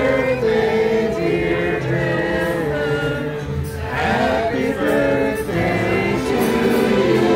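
A small group of people singing together, holding long notes.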